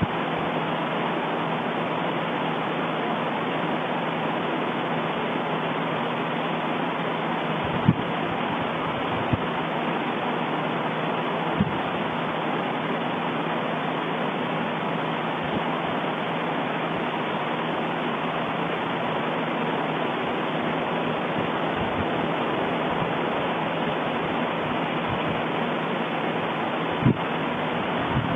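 Steady rushing noise of an erupting volcano, with a few dull low thumps now and then.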